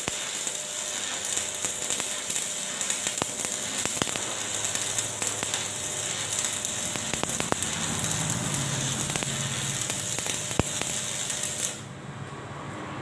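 Stick-welding arc crackling and hissing steadily, with scattered sharp pops, as an electrode burns onto steel. The arc is broken about a second before the end and the crackle cuts off suddenly.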